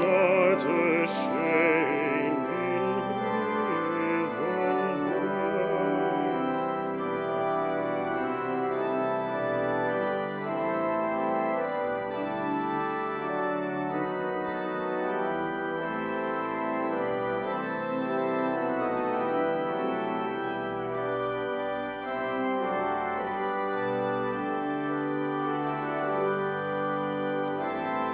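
Church organ playing slow, sustained chords. A singing voice with vibrato trails off over the first few seconds while the organ carries on.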